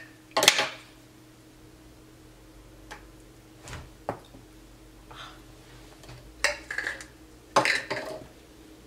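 A vitamin bottle being handled and opened, with short clicks and a clatter of capsules rattling inside, in several brief bursts, the loudest about half a second in and others near the middle and near the end.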